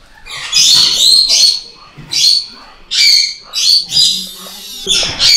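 Baby binturong giving a run of about six shrill squealing calls, each a fraction of a second long; the calls of a frightened young animal being held.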